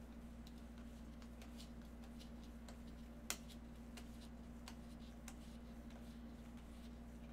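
Faint, scattered clicks of stiff chrome trading cards being slid and flipped past one another in gloved hands, with one sharper click about three seconds in. A steady low electrical hum lies underneath.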